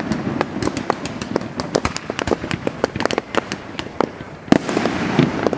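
Aerial fireworks shells bursting overhead: a rapid, irregular run of sharp cracks and pops, with a heavier bang about four and a half seconds in.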